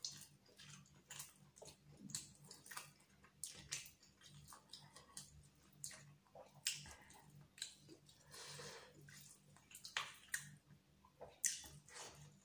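Close-up sounds of eating chicken biryani by hand: wet chewing and lip smacks with irregular clicks, and fingers squishing and mixing the rice on the plate.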